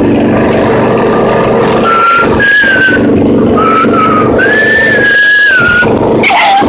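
Riding lawn mower's small engine running steadily under way. A high, wavering whistle-like tone comes and goes from about two seconds in to about six seconds in.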